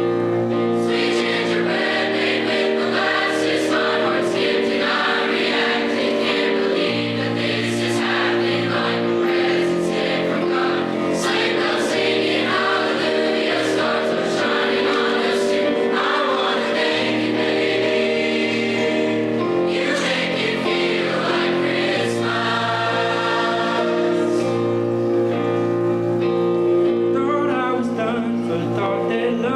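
High school choir singing a Christmas song over instrumental accompaniment.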